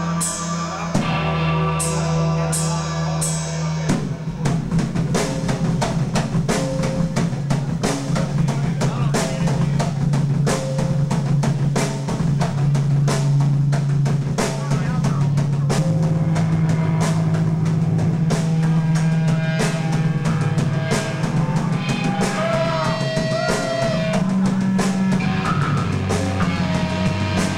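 Live metal band playing, heard through a camcorder's microphone: a rock drum kit over sustained low bass and guitar notes. About four seconds in, the drumming turns into fast, dense hits.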